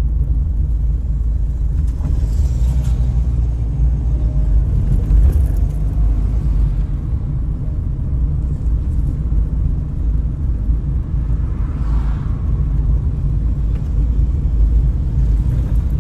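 Car driving along a road, heard from inside the moving car: a steady low rumble of engine and road noise.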